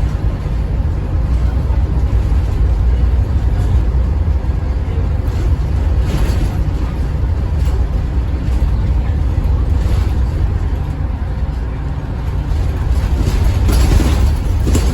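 Bus engine and drivetrain heard from on board while the bus is under way: a steady, loud low rumble. Short hisses come about six seconds in and again near the end.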